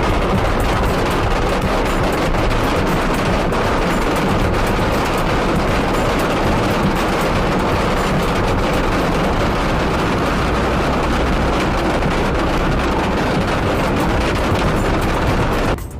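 Heavy rain falling, a loud, steady dense hiss full of fine pattering clicks, which cuts off suddenly near the end.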